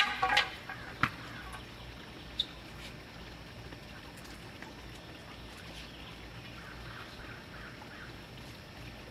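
Quiet outdoor ambience: a brief burst of noise at the start and a single sharp click about a second in, then a low steady background with faint bird chirps.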